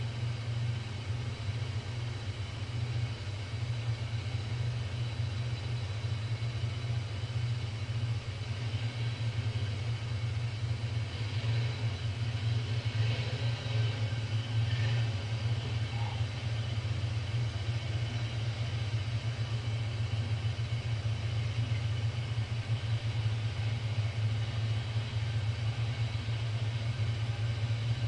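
ATV engines running steadily, a low, even rumble with no revving.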